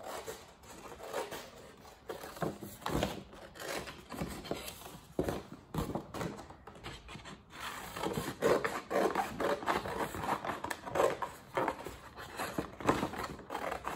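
Scissors snipping through stiff construction paper in an irregular series of short cuts, with the sheet rustling as it is turned; the cutting gets louder and busier in the second half.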